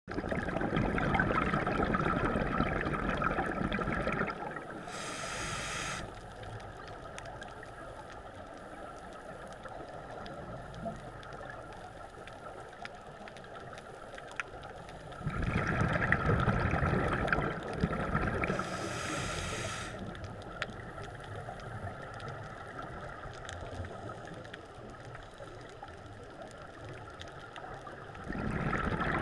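Scuba diver's breathing through a regulator, heard from an underwater camera housing: three long bursts of exhaled bubbles about 13 seconds apart, each followed a second or so later by a short hiss of inhalation, with a steady muffled underwater hiss in between.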